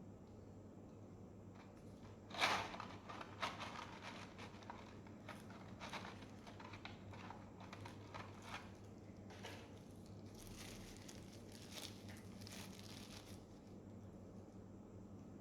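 Earbud packaging being torn open and crinkled by hand: a run of irregular rustles and crackles, loudest about two seconds in, dying away near the end.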